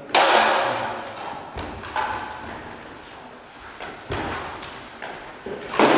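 Thuds of longsword fencers' feet on a hall floor as they move and lunge in a bout. There is a loud burst right at the start that dies away over about a second, and a sharp impact near the end.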